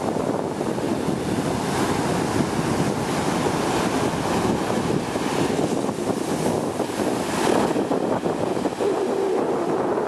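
Sea surf breaking and washing up a sandy beach, a continuous rush that swells louder now and then as waves come in, with wind blowing on the microphone.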